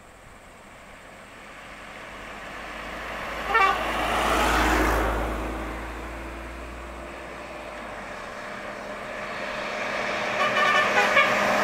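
A vehicle horn gives a short toot about three and a half seconds in, and a low engine rumble swells and fades. From about eight seconds a bus engine grows louder as it approaches, with a few short horn toots near the end.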